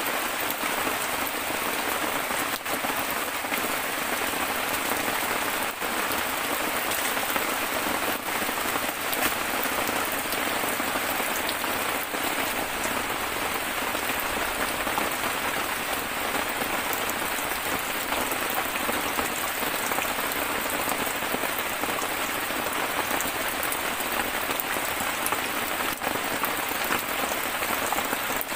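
Steady rain falling on dense forest foliage and the ground, an even hiss of drops throughout.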